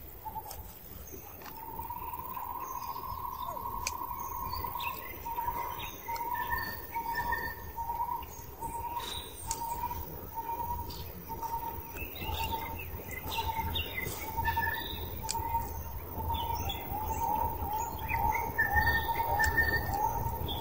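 Birds calling. One bird repeats a short note over and over, about one to two a second, and faster near the end, while other birds give scattered higher chirps.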